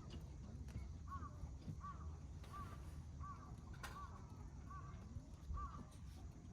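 A bird calling a series of seven short, arched notes, roughly one and a half a second, over a steady low rumble.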